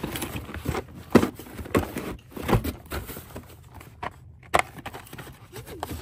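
Small cardboard boxes being pulled from a cardboard display shelf and handled: a run of knocks, scrapes and rustles of paperboard, the loudest about a second in.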